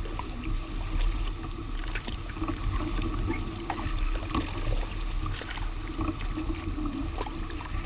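A kayak paddled through a dense bed of lily pads: paddle strokes and water sounds, with scattered light ticks and rustles as the leaves brush the hull, over a steady low rumble.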